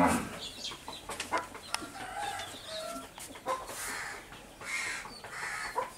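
Chickens clucking: scattered short calls, the loudest right at the start, among a few short hissy noises.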